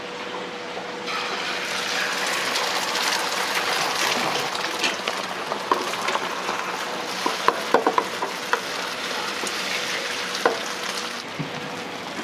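Rice being stir-fried in a hot pan: a steady sizzle that swells about a second in, with sharp clinks of a metal spatula or ladle against the pan in the middle of it.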